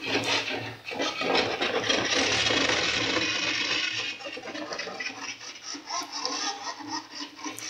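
Small DC motors with worm-gear drives turning the tracker's MDF gear wheels: a rough scraping, rattling mechanical noise that is loudest in the first half and eases after about four seconds.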